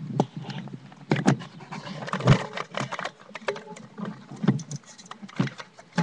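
Bicycle rattling as it rolls over pavement: irregular clicks and knocks, with a heavier knock a little past two seconds in.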